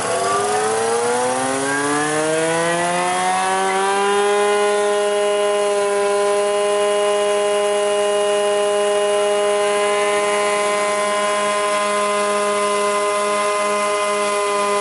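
Kupfermühle 60 four-sided planer starting up: its motors wind up with a rising whine over the first four seconds or so, then run at a steady pitch. A further faint rising tone comes in about ten seconds in.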